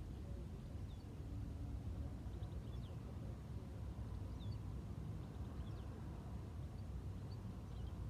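Scattered short, high bird chirps, one or two a second, over a steady low rumble of outdoor ambience.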